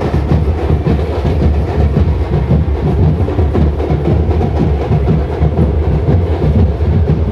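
Loud, dense drumming with a heavy low end, continuous and without a clear melody.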